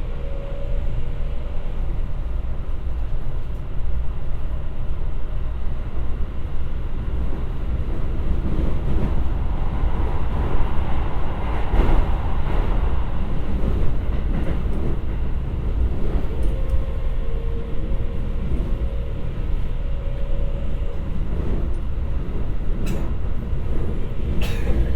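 Keikyu 1000 series electric train heard from inside the car while running: a deep rumble of wheels on rail, with the Siemens GTO-VVVF inverter's steady whine coming in near the start and again in the latter part. A few sharp clicks come near the end.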